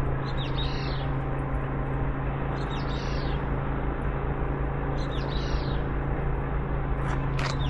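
A bird calling four times, short sliding chirps about every two and a half seconds, over a steady low hum.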